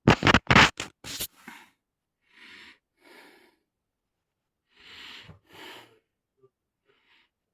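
A person's breathy noises: a very loud cluster of quick bursts in the first second or so, then four softer breaths in two pairs.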